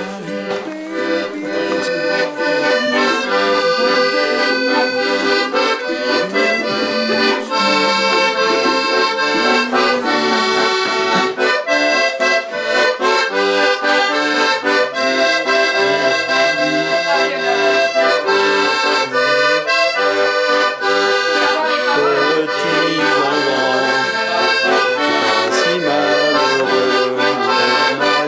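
Accordion music: a continuous tune of held notes and chords that changes pitch every second or so.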